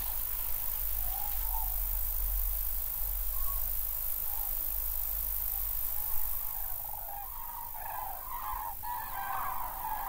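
Birds calling: scattered short calls that thicken into a dense, overlapping chorus from about seven seconds in, over a low steady rumble.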